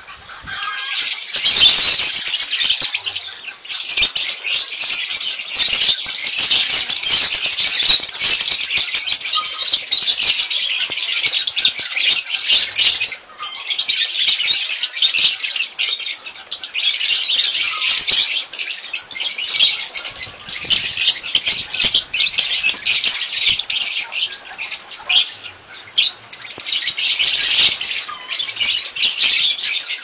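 A flock of masked and Fischer's lovebirds chattering: many shrill, high-pitched calls overlapping almost without pause, dropping off briefly a couple of times.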